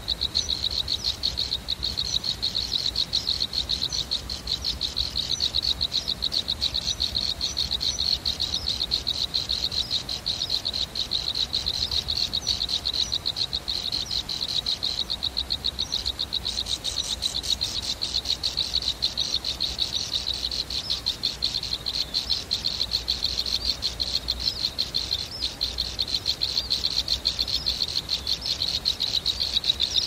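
A steady, rapidly pulsing high-pitched trill from a chorus of calling frogs and insects.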